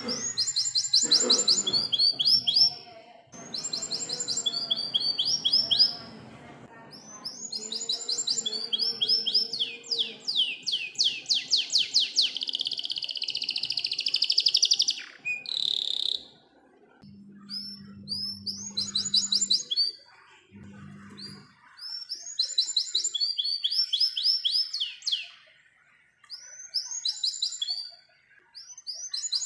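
Domestic canary singing in phrases of fast rolling trills. About ten seconds in comes one long unbroken roll lasting several seconds, and shorter trilled phrases follow after a brief lull.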